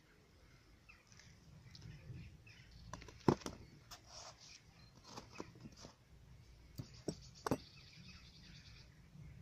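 A few sharp snips and clicks from scissors cutting an aloe vera leaf, in clusters a little after three seconds in, around five seconds and around seven seconds. Birds chirp in the background.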